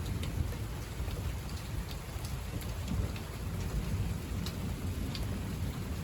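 Thunderstorm rain falling steadily, with scattered drops ticking and a low, uneven rumble of thunder underneath.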